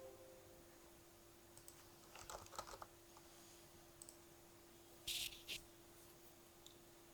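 Faint computer keyboard typing: a few scattered key clicks, then a louder short flurry of keystrokes about five seconds in, over a steady low electrical hum.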